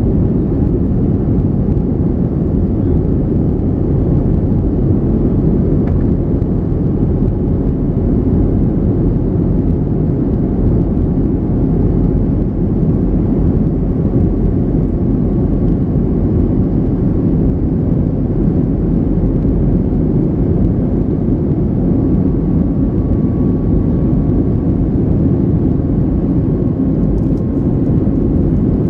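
Steady, loud cabin noise of a Boeing 737-300 in flight: the deep, even hum of its CFM56-3 turbofan engines and rushing air heard from a window seat, with no change in level.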